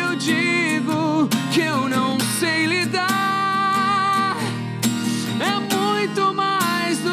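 A man singing a slow pop ballad over acoustic guitar, holding long notes and sliding between them.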